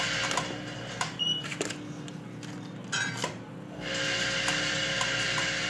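Counting-type automatic packaging machine running batch cycles of six granules each. Its steady mechanical buzz stops about a second in, followed by clicks and a short high beep as a counted batch is released; the buzz starts again a little before the end.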